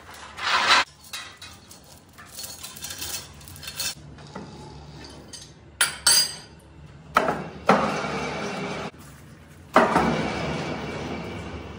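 Steel lifting chain and metal lathe parts clanking and clinking in an irregular series of sharp knocks. Near the end a sharp metal knock is followed by a long fading rattle.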